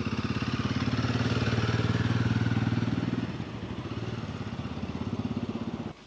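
Royal Enfield Himalayan 450's single-cylinder engine running at low revs with a steady, fast pulse, easing off about halfway, then switched off and cutting out suddenly near the end.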